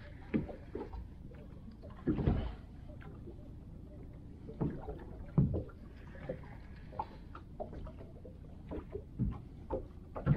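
Water slapping against a small boat's hull in irregular low thumps, over a steady low rumble.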